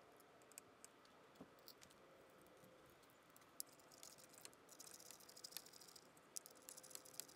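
Faint, rapid clicking of a hand ratchet wrench turning the water pump bolts out, scattered at first and much denser from about halfway through.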